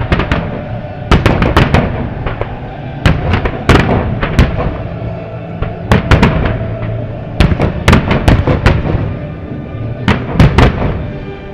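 Aerial firework shells bursting in rapid clusters of sharp bangs, several volleys in a row, with music playing underneath.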